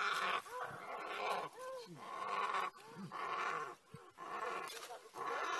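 Spotted hyenas calling in a fight: a rapid string of short yelping cries, each rising and falling in pitch, about one or two a second.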